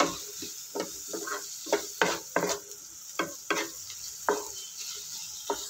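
Wooden spatula stirring and scraping chopped onions in hot oil in a kadhai: irregular scraping strokes, about two a second, over a faint sizzle of the onions sautéing.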